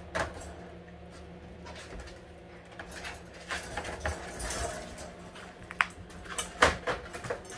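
Siberian husky puppies at play, giving small whines, coos and grumbles, with short sharp clicks and knocks from their scuffling on the tile floor. It starts quiet over a steady low hum and grows busier from about halfway, with a brief high whine shortly before the loudest knock near the end.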